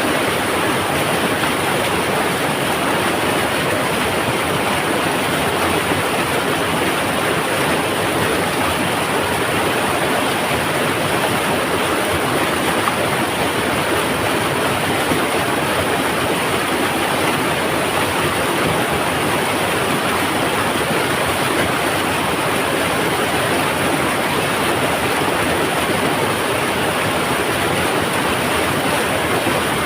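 Mountain river water rumbling in a steady, unbroken rush.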